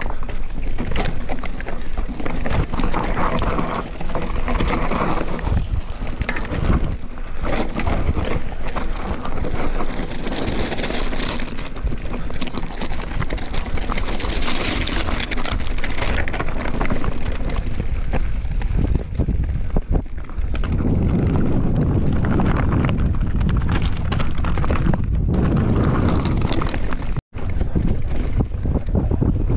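Giant Reign full-suspension mountain bike descending a rocky downhill trail: tyres rumbling and crunching over loose stones and roots, with the bike rattling continuously and wind rushing over the microphone. The sound cuts out for an instant near the end.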